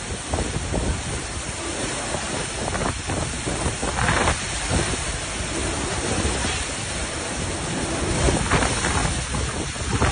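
Hurricane-force wind and heavy rain rushing steadily, with stronger gusts about four seconds in and again near the end.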